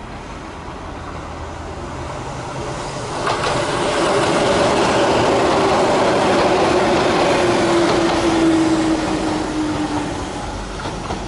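Keihan 600 series electric train passing close by, wheels clattering over the rails, with a whine that slides slowly down in pitch while it goes by. The sound swells about three seconds in and fades near the end.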